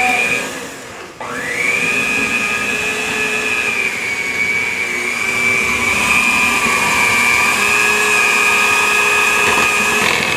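Electric hand mixer beating icing of confectioner's sugar and milk, its motor giving a steady whine. It cuts out briefly about a second in, then starts again, spins up and runs evenly.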